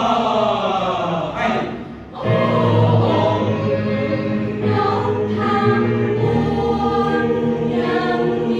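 Youth choir singing in several-part harmony: the voices slide downward together, break off briefly about two seconds in, then sustain a long held chord.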